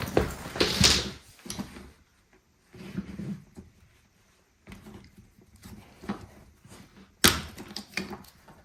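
Plastic clicking, scraping and knocking as a suitcase wheel's cap is worked off its hub, with a burst of handling noise at the start and a sharp knock near the end.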